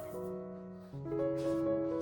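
Soft background piano music, sustained chords changing every half second or so.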